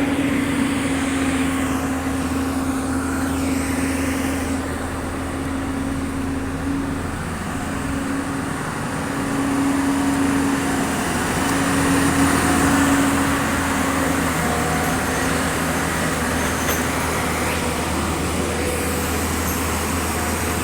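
Heavy diesel engine running steadily at a constant pitch, getting a little louder for a few seconds in the middle.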